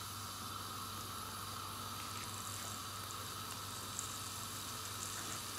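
Chopped onions sizzling quietly in hot oil in a cooking pot, a steady soft hiss with a faint crackle now and then.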